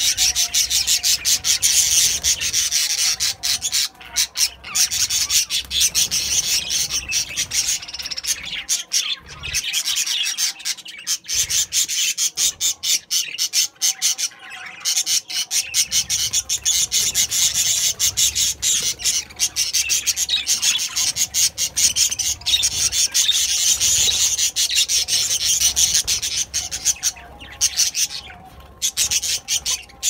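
A flock of budgerigars chattering: a dense, continuous stream of rapid high chirps with a few brief lulls.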